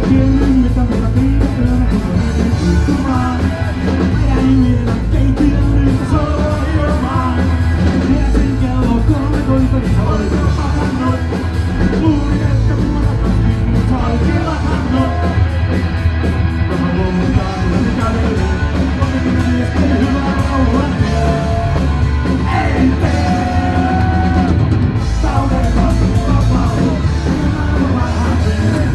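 Rock band playing live: a male singer over bass, electric guitar and a drum kit, heard loud and bass-heavy from within the club audience.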